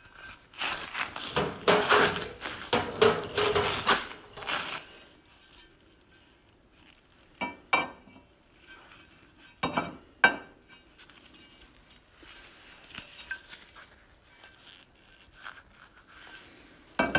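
Loose metal frame brackets of a stripped-down ATV clanking and clinking as they are picked up and moved about. There is a busy clatter for the first few seconds, then a few single knocks and fainter clicks.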